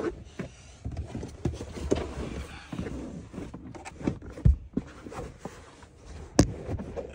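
Handling noises in a car's rear seating area: irregular rustling, bumps and clicks as a floor mat is worked into place, with a low thump about four and a half seconds in and a sharp click about a second before the end.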